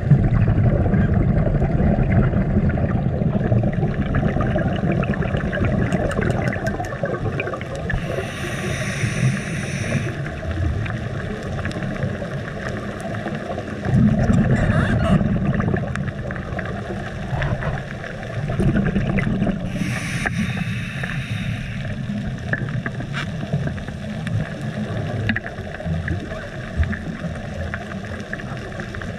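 Underwater ambience, a steady low rumble, with a scuba diver's exhaled regulator bubbles in two bursts, each about two seconds long and about twelve seconds apart.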